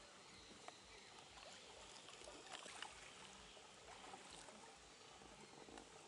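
Near silence with faint small splashes and drips of water from a bar-headed goose preening on a pond.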